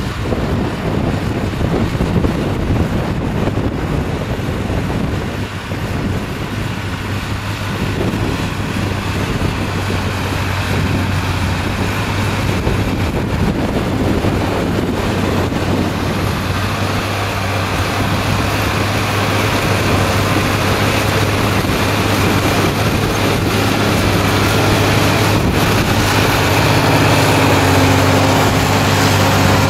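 Deutz-Fahr Agrotron TTV 620 tractor engine running steadily while pulling a disc tillage implement through the soil. It grows gradually louder as the tractor comes close.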